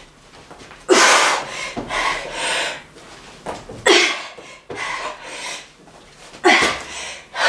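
A woman breathing hard from exertion: about four heavy, noisy breaths a second or two apart.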